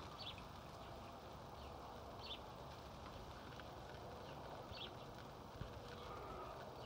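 Faint background with a few short, high chirps about every two seconds, like a small bird calling.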